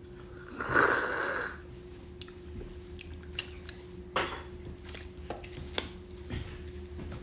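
Mukbang eating sounds: a brief slurp about a second in as meat is sucked from a piece of boiled lobster, then scattered small cracks and clicks as gloved hands break a lobster claw's shell apart. A steady faint hum runs underneath.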